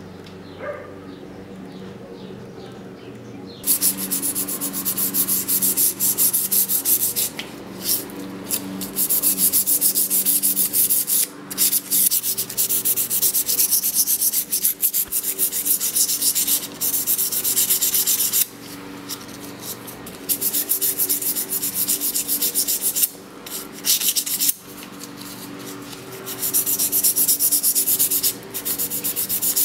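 A damascus steel blade being rubbed by hand with a fine abrasive: rapid back-and-forth scratchy strokes in long runs with short pauses, starting about four seconds in. A steady low hum sits underneath throughout.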